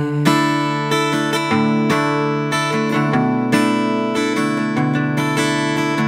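Steel-string acoustic guitar strummed live, chords ringing with strokes repeating in a steady rhythm.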